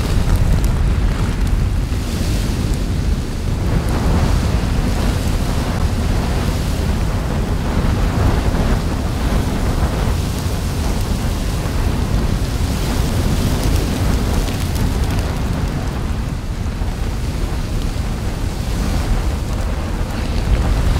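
Steady deep rumble with a rushing hiss that swells every few seconds: a sound effect of an erupting volcano with spattering lava, added in post-production, not the real sound of the eruption.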